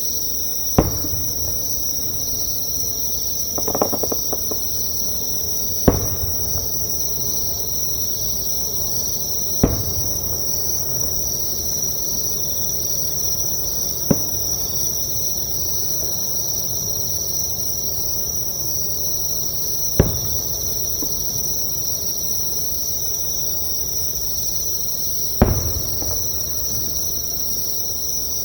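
Insects trilling nearby in one steady, high, unbroken chorus, with distant fireworks booming about six times several seconds apart and a short crackle of bursts about four seconds in.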